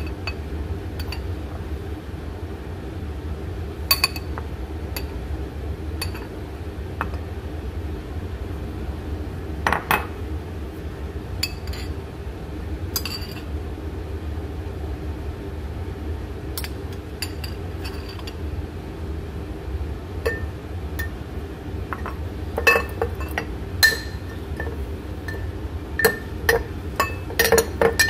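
Metal spoon clinking against a ceramic bowl and a glass jar while flour is spooned into the jar: scattered single clinks that come thicker near the end, over a steady low hum.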